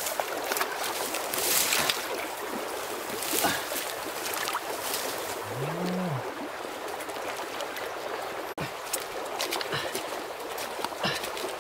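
Water sloshing and splashing around legs wading in a shallow muddy stream, with scattered scrapes, knocks and splashes as a hoe and hands dig into the mud bank at the water's edge. About halfway through, a short low tone rises and falls.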